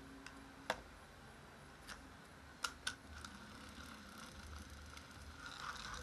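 A handful of faint, sharp plastic clicks from a small toy car being handled and moved above a wooden table, the clearest about a second in and two in quick succession near the middle.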